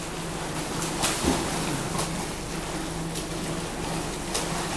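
Pool water splashing and churning as a man runs in the water, pumping his arms, with a few brief louder splashes. A steady low hum and hiss run underneath.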